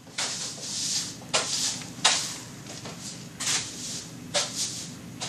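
Objects being handled on an office desk: several short rustling, scraping bursts spaced unevenly, over a low steady hum.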